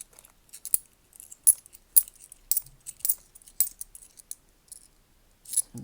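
10p coins clinking against one another as they are handled, a series of sharp, irregular clinks.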